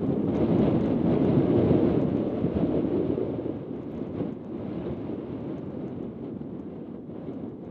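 Wind buffeting the microphone: a low, rumbling rush that is louder for the first few seconds and then eases off.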